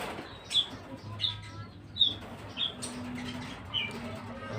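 White-rumped shama (murai batu) giving a series of short, sharp high chirps, about one a second, two of them louder than the rest, over a faint low hum.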